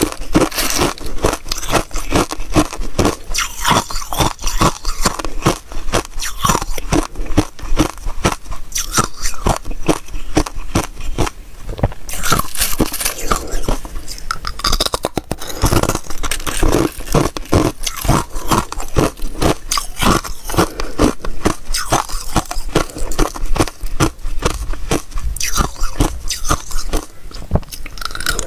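Thin sheets of ice bitten and chewed close to a clip-on microphone: a dense, unbroken run of crisp crunches and cracks, with some scraping of ice shards on the tray as pieces are picked up.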